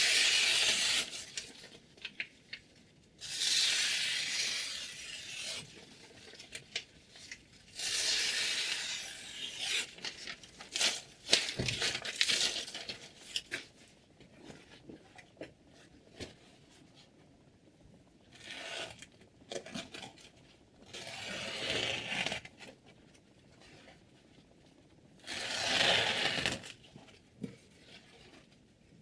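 Steel knife blade drawn in separate strokes: about five hissing scrapes, each a second or two long and several seconds apart, with a few light clicks in between.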